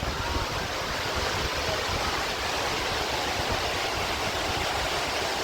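Bisheh Waterfall: water pouring down in a steady, even rush with no breaks.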